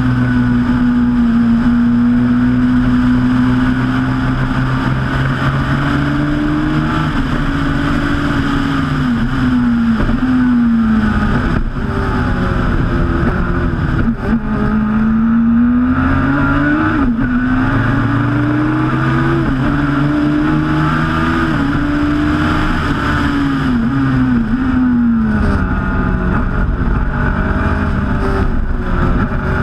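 Turbocharged Suzuki Hayabusa inline-four motorcycle engine of a Westfield Megabusa at race speed, heard onboard: the pitch holds steady, drops about a third of the way in as the driver lifts, then climbs again with several quick upshifts before dropping back near the end, over a steady rushing noise.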